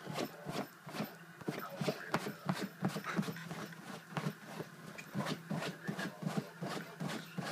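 St. Bernard attacking a couch: a rapid, irregular run of scrapes, knocks and rustles of the dog working at the cushions.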